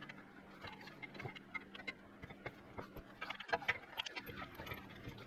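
Irregular light metallic clicks and taps of an Allen wrench working a brake caliper's slide bolts, bunched together about three seconds in.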